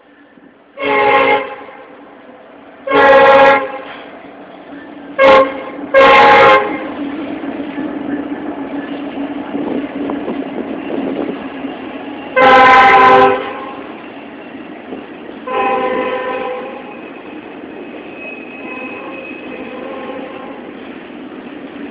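A freight locomotive's multi-chime air horn sounds two long blasts, a short one and a long one: the grade-crossing signal. It then gives two more long blasts, the last one fainter. Between and after the blasts a Norfolk Southern intermodal train rumbles steadily past.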